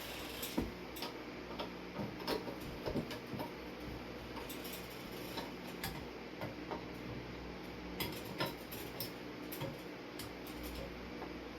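Scattered light clicks and taps, at irregular times, of hands working on a ceiling fan's wiring and small parts, over a steady low hum.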